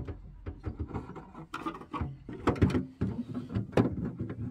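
Irregular clicks, knocks and scraping as a plastic gas-outlet housing and its copper pipe are pushed into a hole in a van's steel sill and pressed against the bodywork.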